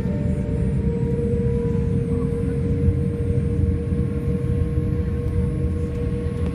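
Boeing 787 Dreamliner's jet engines running, heard from inside the cabin as a steady loud rumble with a constant whine over it and a fainter higher tone creeping slowly upward.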